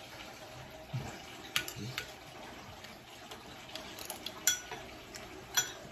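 Cutlery clinking and scraping on plates: a scatter of light metallic clinks and taps, some with a short ring, the brightest about four and a half seconds in.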